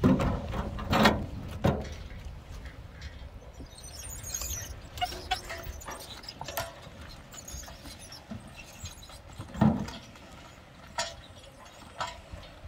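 A speaker cabinet set into a metal wheelbarrow with a few heavy thumps in the first two seconds, then the loaded wheelbarrow rolling along a wooden plank boardwalk, its wheel knocking over the board joints in scattered clunks.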